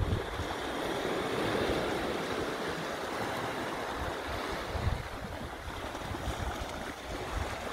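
Sea water washing against a rock ledge, a steady hiss, with wind buffeting the microphone in low gusts, one about five seconds in.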